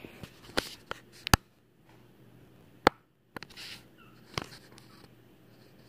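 A handful of sharp clicks and taps over faint room noise, from walking with a handheld phone across a wooden floor.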